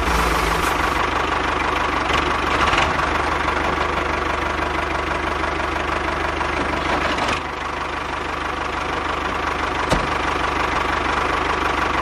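Tractor engine running at a steady, fast knocking chug, dipping slightly in level about seven seconds in.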